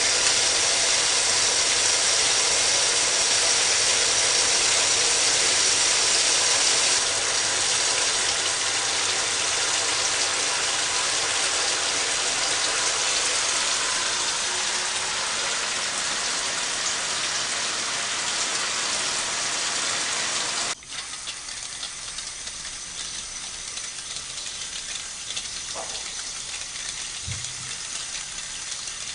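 Water spraying steadily from a shower head. About two-thirds of the way through it drops abruptly to a quieter spray.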